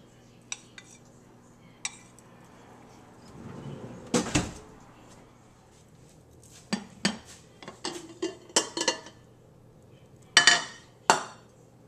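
Glass kitchenware and a spatula clinking and knocking in scattered, irregular strikes, with two loud clatters near the end.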